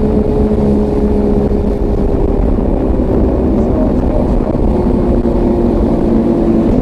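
Zipline trolley pulleys running along the steel cable with a steady whine that slowly drops in pitch, over heavy wind rush on the microphone.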